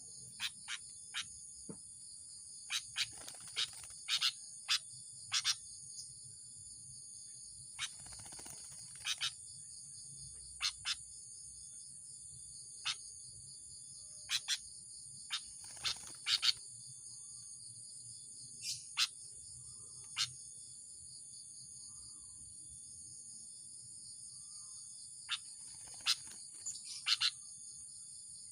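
Sooty-headed bulbul (kutilang) giving short, sharp chirp notes, scattered irregularly with gaps of a second or more. Under them runs a steady, high-pitched chorus of insects.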